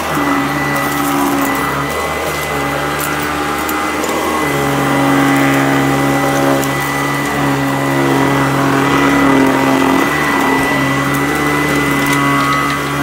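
Sanitaire SC899 commercial upright vacuum running steadily on a doormat, its motor hum and whine shifting slightly about four and a half seconds in, with light crackling as it picks up grains of salt.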